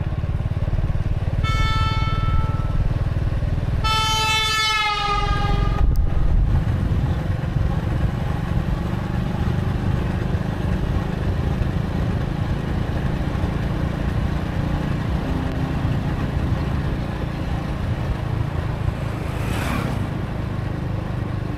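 Steady low rumble of a motorcycle ride along a road, with a vehicle horn honking twice: briefly about a second and a half in, then longer about four seconds in, its pitch dropping as it ends.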